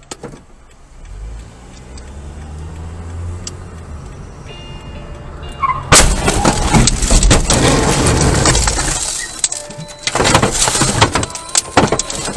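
Car engine pulling away, then about six seconds in a sudden, very loud crash: impact, then crunching and scraping for several seconds as the car rolls onto its side, with a second loud burst of crashing noise near the end.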